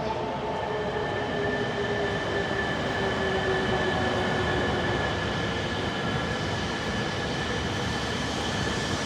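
Electric train running, a continuous rushing noise with steady high-pitched whines and a lower motor tone that falls slowly in pitch and fades out about five seconds in.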